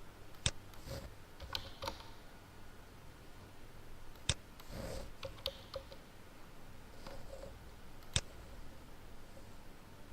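Clicking at a computer: three sharp clicks about four seconds apart, with softer clicks and taps between them.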